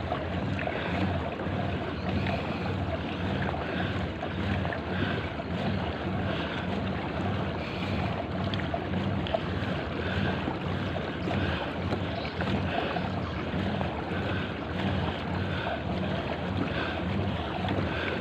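Wind buffeting the microphone and water washing along a plastic kayak's hull as it is pedalled across open water. The wash is steady, with an even, repeating rhythm.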